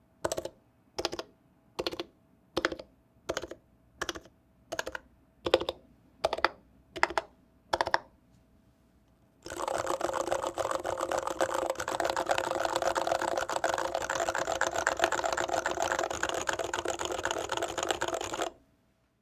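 Stock Norbauer Seneca mechanical keyboard with medium-weight dome switches being typed on. First come about eleven single, evenly spaced keystrokes, roughly one every three-quarters of a second. Then, after a short pause, fast continuous typing runs for about nine seconds and stops just before the end.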